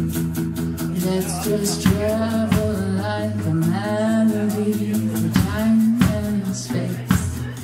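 Live band music: a woman singing over a strummed acoustic guitar, with regular drum strikes keeping the beat.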